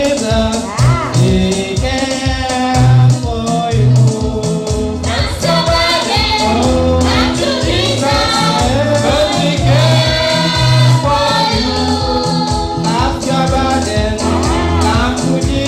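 Live gospel praise music: a lead voice and backing singers sing over an electronic keyboard with a steady beat, amplified through a PA.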